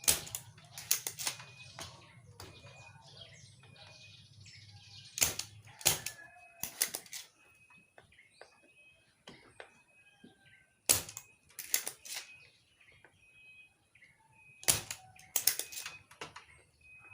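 Sharp clicks and taps in small clusters from hand tools working components loose on an amplifier circuit board, where the small transistors' legs are rusted through and breaking off. A low hum underneath stops about six seconds in.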